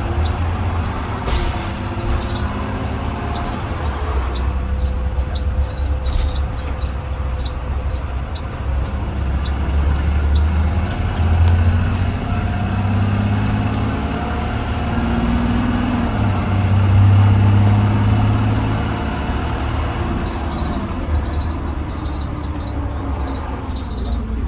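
Interior drive sound of a 2020 Blue Bird Vision school bus: the engine runs with a deep rumble, its pitch rising and falling as the bus accelerates and slows. A short hiss of air, typical of the air brakes, comes about a second in.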